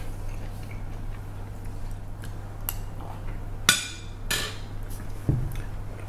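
Metal serving spoon clinking against ceramic plates a few times, the loudest clink near the middle, followed by a dull thump near the end. A steady low hum runs underneath.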